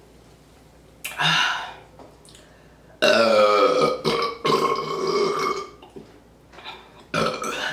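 A person burping loudly after chugging carbonated Sprite Zero: a short burp about a second in, then a long drawn-out burp for nearly three seconds with a brief catch partway, and shorter burps near the end.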